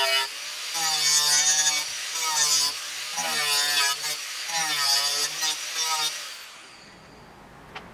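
Angle grinder shaping a pine handle. Its motor whine dips in pitch as the disc bites into the wood on each pass, about once a second, with a harsh abrasive hiss. The tool winds down a little after six seconds.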